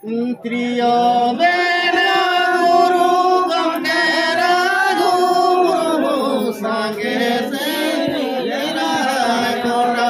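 A group of men and women singing a slow, chant-like song together in unison, with long held notes that slide from one pitch to the next.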